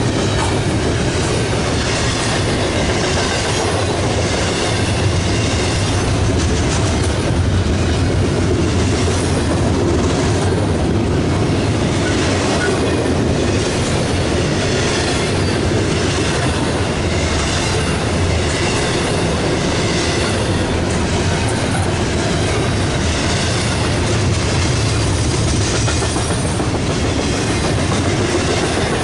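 Double-stack intermodal train's container well cars rolling past close by: a steady rumble and rattle of steel wheels on rail, with a regular clatter about once a second.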